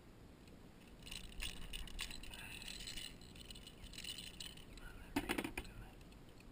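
Metal fishing pliers and a lure's hooks clinking and rattling as the hooks are worked out of a snook's mouth, with a brief cluster of sharper clicks about five seconds in.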